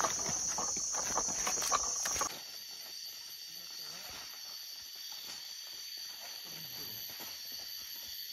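Forest insects keep up a steady high-pitched drone. For the first two seconds it is loud, with footsteps crunching and rustling through leaf litter and undergrowth. About two seconds in it drops abruptly to a quieter, even drone.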